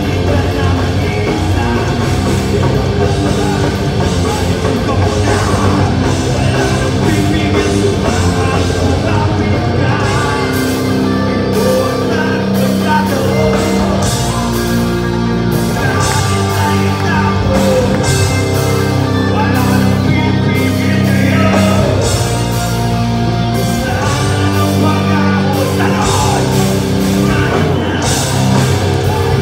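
Heavy rock band playing live at full volume: distorted electric guitars, bass and drum kit, with a singer's voice over them.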